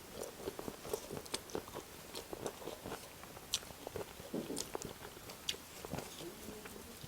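Close-up eating sounds: a person chewing and biting into fried chicken legs with rice, with many short, irregular wet clicks.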